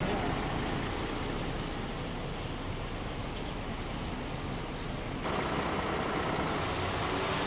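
Steady outdoor traffic noise of coaches and cars, engines running with a low hum under a noisy hiss. About five seconds in the noise shifts abruptly and grows a little louder.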